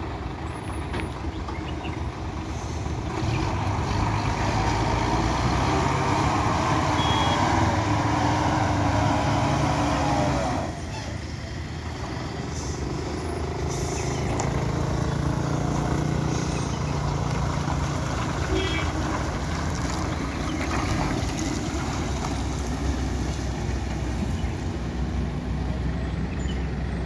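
Diesel engine of a loaded Ashok Leyland lorry running slowly round a hairpin bend, growing louder as it comes closer. About ten seconds in it drops suddenly, then goes on steadily.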